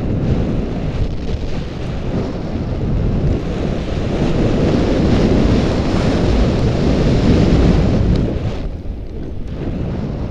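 Wind rushing over an action camera's microphone during a fast ski run, with skis hissing and scraping over the snow. The rush builds and then eases with the top end dropping away about eight and a half seconds in, as the skier slows.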